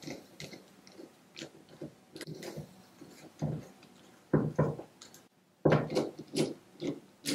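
Screwdriver turning a screw in the jaw of a small restored bench vise: irregular short clicks and scrapes of metal on metal, with a few louder knocks in the last three seconds.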